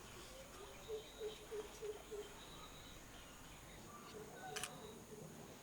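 Faint rural background: an animal, likely a bird, repeats short low notes about three a second, pausing in the middle, over a steady high insect whine. A single sharp click comes about four and a half seconds in.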